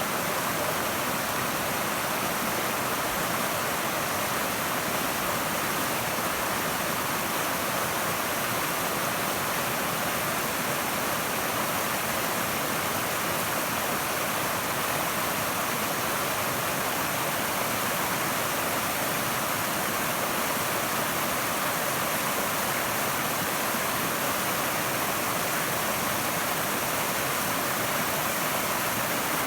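A mountain creek cascade: water tumbling and rushing in a steady, unbroken hiss, bright and full, with little low rumble.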